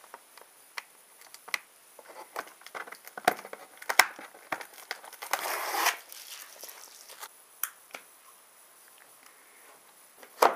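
Clear plastic doll packaging crinkling and rustling as it is handled, with scattered sharp clicks and taps. The crinkling is longest and loudest about five to six seconds in.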